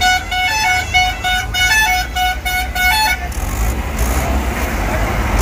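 An electronic vehicle horn beeping a rapid run of short pitched notes, like a little tune, for about three seconds, then stopping. Steady outdoor crowd and traffic noise follows.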